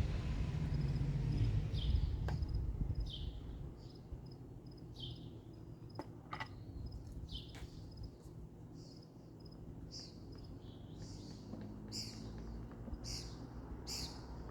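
Birds chirping: short falling chirps about once a second, coming faster toward the end, over a faint, high, pulsing insect trill. A low rumble fades out about four seconds in.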